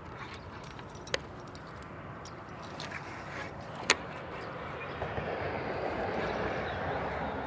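Light metallic clinking and rattling of gear in a kayak, with two sharp knocks, about a second in and about four seconds in.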